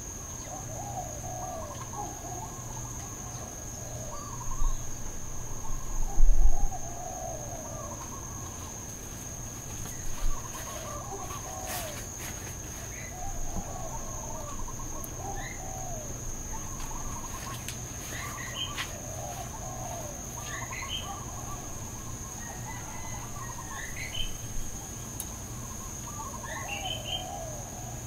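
Outdoor ambience of birds calling over and over in short warbling phrases, with a steady high insect drone underneath. A few brief louder bumps come through, the strongest a low thump about six seconds in.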